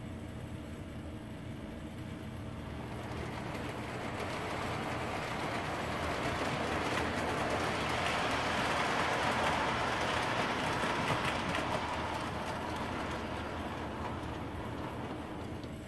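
Lionel #44 USMC missile launch train, the modern TMCC reissue, rolling on O-gauge three-rail track: a rumble of wheels and motor that builds over several seconds, is loudest about halfway through, then fades as the train moves away.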